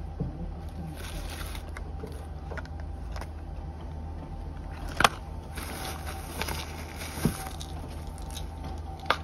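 Steady low hum with a few sharp clicks or knocks, the loudest about five seconds in.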